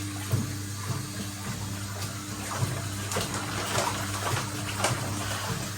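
Water trickling into the tub of a 1958 Hotpoint Empress washing machine while it runs, over a steady motor hum. A few faint clicks.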